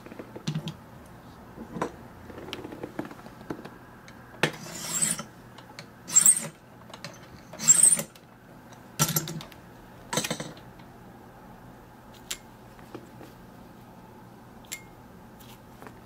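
Thin needle file rasping on a key blank held in an impressioning handle. There are about five short, separate strokes between four and ten seconds in. The file is cutting down the blank at the impression mark for the lock's third position.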